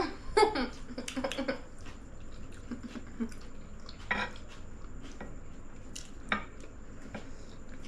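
Scattered light clinks and taps of cutlery against plates and dishes while eating, a handful of separate short knocks spread across a few seconds.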